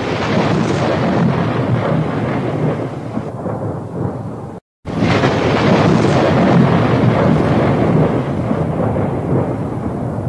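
Thunderstorm with rain: a loud thunderclap rumbling and slowly fading, then, after a brief dead-silent break about four and a half seconds in, a second thunderclap that starts suddenly and fades the same way.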